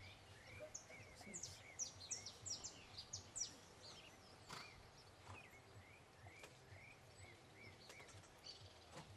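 Faint birdsong: a run of quick, high chirps and short arching notes, densest in the first few seconds and thinning out later, over steady outdoor background hiss.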